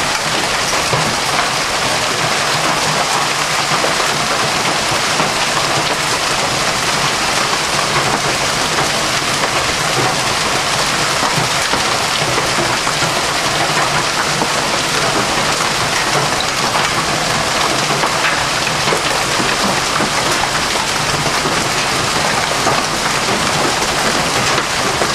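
Heavy hailstorm: near-golf-ball-size hailstones pelting the ground, a tree and parked vehicles in a loud, steady, unbroken hiss of countless impacts.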